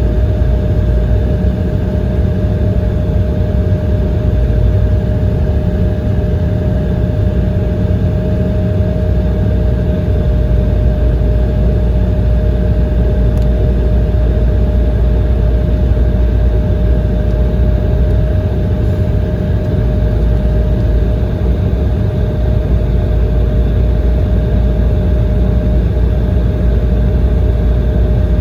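Steady low rumble inside the cabin of an Embraer 170 airliner with its General Electric CF34 jet engines running at low power before takeoff, with a steady mid-pitched tone over it.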